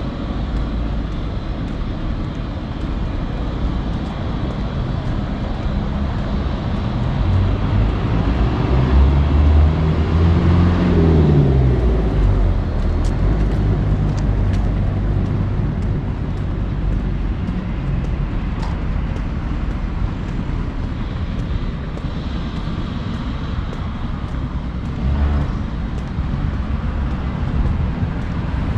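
Street traffic noise with one motor vehicle passing close about ten seconds in: its engine note swells, then drops in pitch as it goes by.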